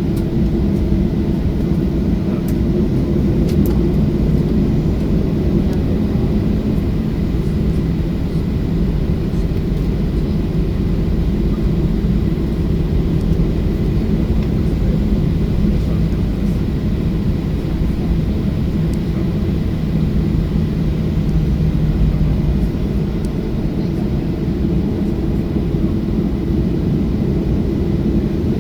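Jet engines of a Boeing 737-800 running steadily: a loud, even rumble with a low hum and no rise in pitch.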